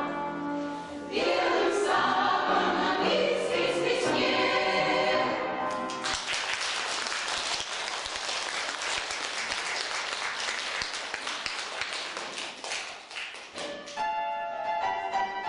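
Choir singing as a song closes about five seconds in, followed by audience applause lasting about eight seconds. Near the end a piano starts the next piece.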